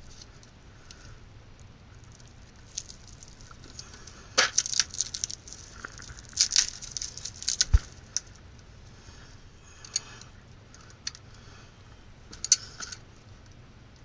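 Cable sheathing being torn and scraped off heavy stranded electrical cable by hand, in short crackling, rustling bursts. There are a few isolated clicks and one sharp knock a little before the eight-second mark.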